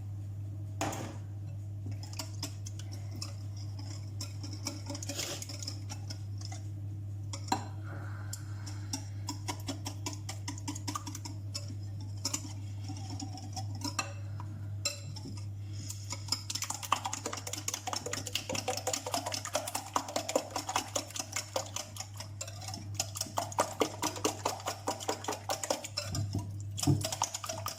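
Cake batter being beaten by hand in a bowl, a utensil clinking against the bowl: scattered strokes at first, then fast, even clicking from about halfway through, over a steady low hum.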